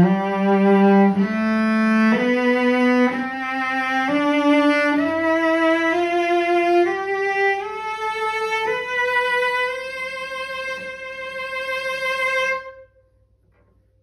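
A c.1845 Tyrolean cello with a spruce top and flamed maple back, bowed in a slow rising scale of about ten notes, the last one held for several seconds before it stops near the end.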